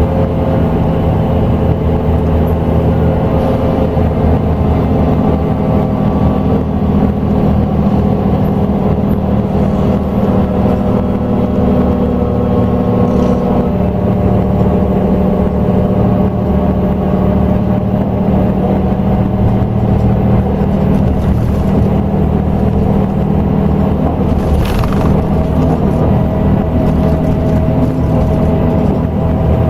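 Scania K380EB bus engine running steadily under way, its pitch shifting slightly as the bus drives, with a brief knock about 25 seconds in.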